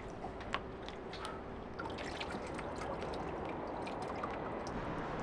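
Water dripping and trickling off an outboard motor's leg and propeller as the motor is tilted up out of the water, with a few light clicks in the first second.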